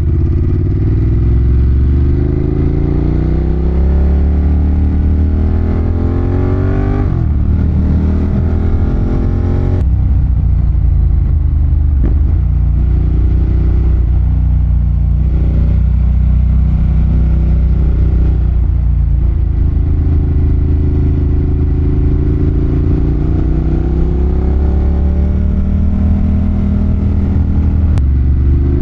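Ducati Monster 1200's L-twin engine under way on the road. The revs rise through the first several seconds and drop sharply about seven seconds in, as at a gear change or throttle roll-off. They hold steadier through the middle, then climb again near the end.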